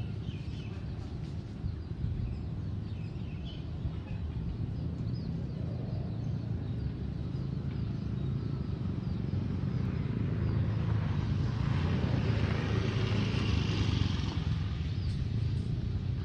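Diesel locomotive engine running with a steady low rumble. It grows louder from about ten seconds in, with more hiss above it, and eases slightly near the end.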